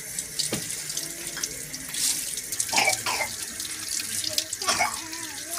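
Water running from a tap and splashing over fresh herbs being rinsed by hand, spattering into a plastic colander of vegetables.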